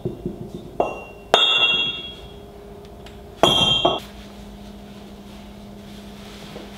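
Metal clanking: a light knock, then two hard metallic strikes about two seconds apart, each leaving a short high ringing. A steady low hum sets in after the second strike.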